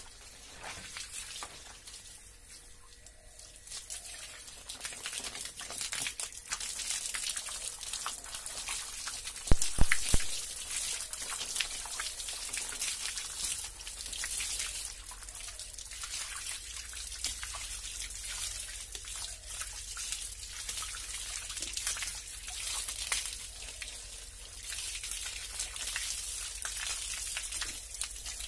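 Water from a running hose splashing over a bather's body and onto a wet concrete floor, a steady splashing and dripping. A few sharp knocks, the loudest sounds, come about a third of the way through.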